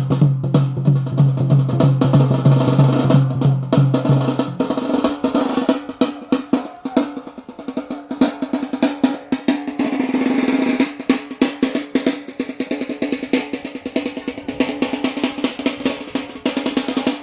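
Music led by fast, dense drumming. A steady low held note sounds for the first four or five seconds, then stops, and other sustained pitched notes carry on under the drums.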